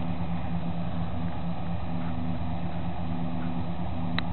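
A 1987 Chevy pickup's 350 V8 idling steadily through its 3-inch Flowmaster dual exhaust. A short click comes near the end.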